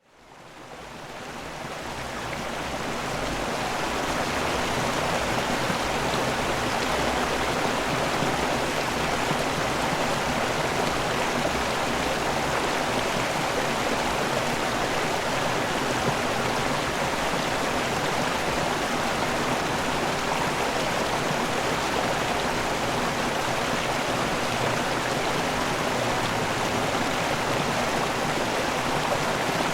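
Running water in nature, a steady rushing flow that fades in over the first few seconds.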